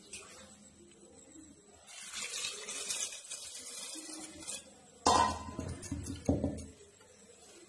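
Water poured from a steel vessel into a metal pot of dal and vegetables, then two loud metal clunks of pots being set down and handled, about five and six seconds in.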